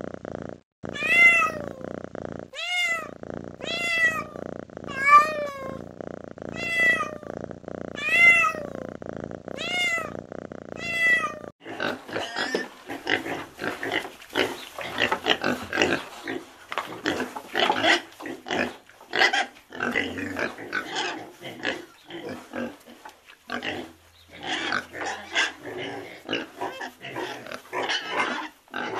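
Domestic cat purring steadily while giving a short meow about every second and a half, eight times. About twelve seconds in, it gives way to a crowd of piglets squealing and grunting, with a brief lull near the end.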